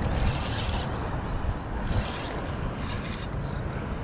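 Fishing reel working while a hooked smallmouth bass is played in: three short spells of mechanical clicking and whirring, the longest at the start, over a steady low rumble.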